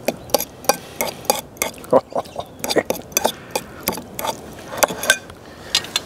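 Metal spoon clinking and scraping against a ceramic bowl: an irregular run of light, sharp clicks, several a second, as sour cream is scooped and stirred through shredded beef.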